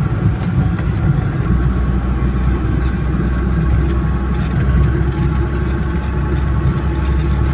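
UAZ off-road vehicle driving slowly on an icy road, its engine and road noise heard from inside the cabin. A steady low engine drone grows stronger about one and a half seconds in and holds.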